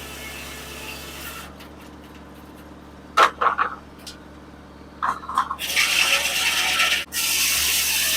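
Sawmill running with a steady hum underneath. Short loud scrapes come about three and five seconds in, then a loud hissing rush, briefly broken near the end, typical of the blade cutting through a log.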